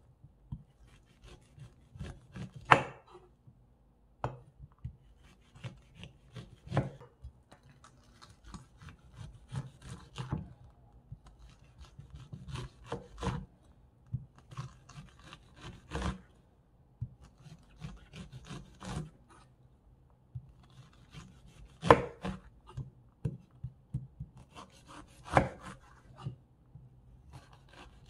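A kitchen knife slicing raw supersweet corn kernels off the cob on a wooden cutting board: repeated scraping strokes down the ear, with the blade now and then knocking sharply on the board.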